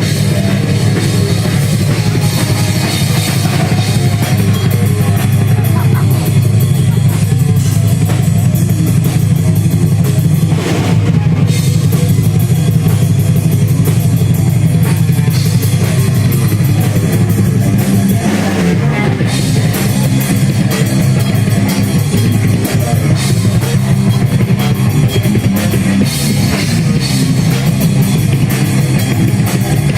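Heavy metal band playing: distorted guitar and bass with dense, fast drumming on a full drum kit, with a brief break in the cymbals and top end about eleven seconds in and again near nineteen seconds.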